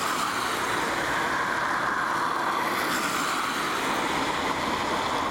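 Steady hiss of torrential rain falling and pattering on the camera's rain cover.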